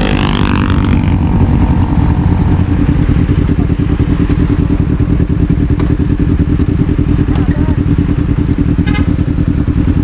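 Motorcycle engine running steadily under way, a loud, even, low-pitched note.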